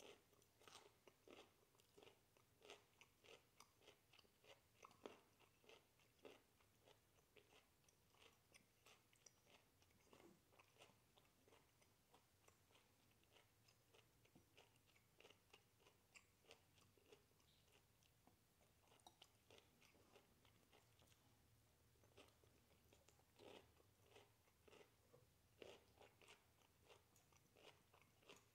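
Faint, close-up chewing and crunching of broccoli: a quick, uneven run of small wet mouth clicks, with a few louder crunches.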